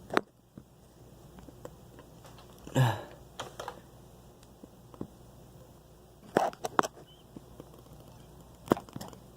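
Scattered plastic clicks and knocks from a Nerf Rival XVIII-500 blaster being handled, with a louder knock about three seconds in and a quick pair of clicks a little after six seconds.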